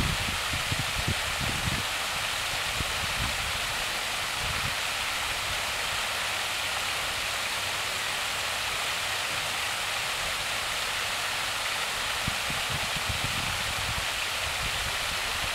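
Fountain water pouring over the rim of a basin in a wide curtain and splashing into the pool below, a steady rushing splash. Low thumps come through in the first couple of seconds and again near the end.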